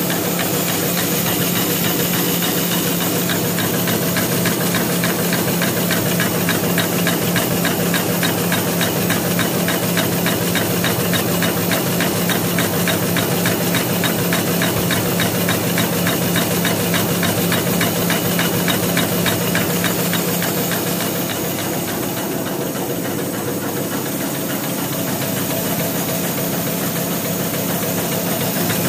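Automatic napkin paper folding machine running: a steady mechanical hum with a fast, even clatter from its folding and cutting mechanism, slightly quieter about two-thirds of the way through.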